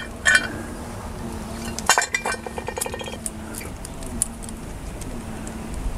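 Metal clinks and clicks of a hand wrench and loose bolts being worked at a small motorcycle's front sprocket cover. There is a sharp clink at the start, a cluster of clinks about two seconds in followed by a quick, even run of clicks, then only light ticks.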